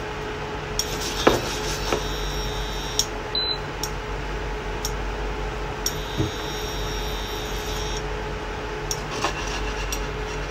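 Grated-potato rösti frying in clarified butter in a nonstick pan, a steady sizzle with a few light clicks over a faint steady hum.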